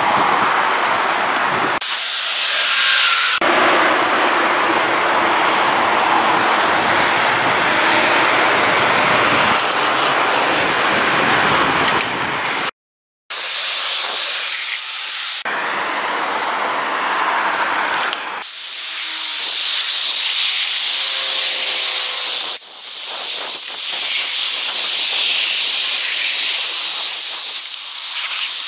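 Steady rush of wind over the microphone while cycling along an asphalt bike path. The sound cuts out completely for about half a second around 13 seconds in.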